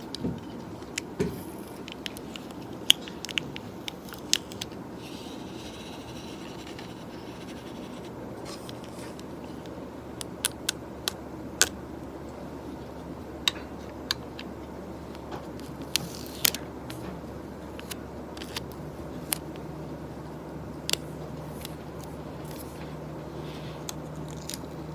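Scattered sharp clicks, taps and light scrapes of small objects being handled at an office desk, irregular rather than a typing rhythm, over a steady low office hum; a second low hum comes in about three quarters of the way through.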